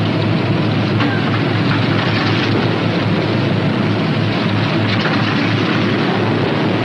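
Northrop P-61 Black Widow's Pratt & Whitney R-2800 radial engines running steadily on the ground during start-up and warm-up: an even, unbroken drone with a strong low hum.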